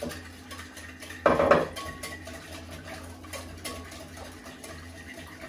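Wire whisk beating a thin liquid marinade in a ceramic bowl: quick, repeated clinking and scraping of the wires against the bowl, with one louder clink about a second in.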